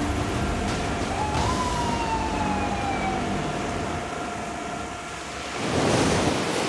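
Fire engine at a fire scene: steady engine and pump din with a siren that rises and then falls slowly once. A louder rushing whoosh swells near the end.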